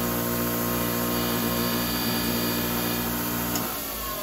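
Bench grinder with a wire wheel running: a steady electric motor hum with a whine. Near the end the hum cuts out and the pitch begins to fall as the wheel coasts down.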